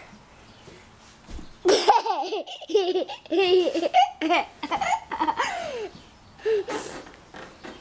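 A young child laughing in a long run of high-pitched giggles, starting a little under two seconds in, with one more short laugh near the end.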